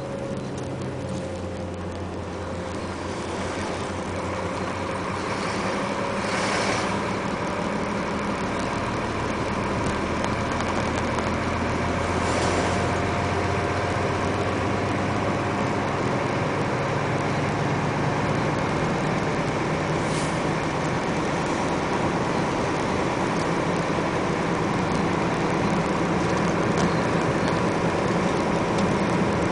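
Truck engine running and tyre and road noise heard from inside the cab, growing louder over the first several seconds as it gathers speed. The engine hum shifts in steps a few times, and a few short hisses come through.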